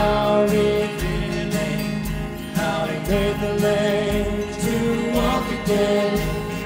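Live church worship band playing a gospel hymn on guitars, keyboard and drums, with the congregation and worship leader singing along.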